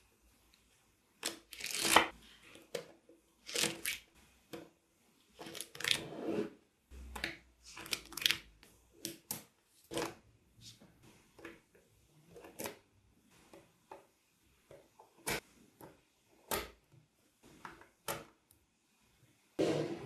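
Small neodymium magnetic balls clicking and rattling in irregular bursts as slabs of them are handled, pressed together and snapped into place by hand.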